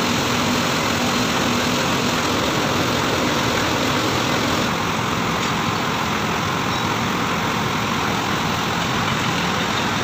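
Truck-mounted mobile crane's diesel engine running steadily while the crane holds a lifted steel load.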